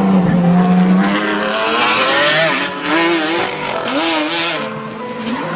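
Ferrari Enzo-based race car's V12 engine revving hard, its pitch dipping and climbing as the throttle is lifted and reapplied. From about a second and a half in, tyres hiss and skid on loose gravel for about three seconds: the car losing traction as power goes down at the exit of a turn, and the driver catching the slide.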